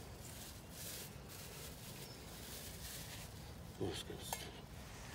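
Faint steady background, then about four seconds in a short knock followed by a brief clink as a non-stick frying pan is taken by its handle on a small gas canister camping stove.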